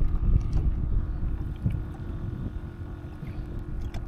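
Wind rumbling and buffeting on the microphone aboard a fishing kayak, with a faint steady hum beneath.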